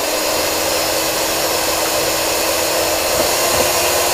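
Electric hand mixer running at a steady speed, its beaters whipping egg whites in a bowl, still short of soft peaks.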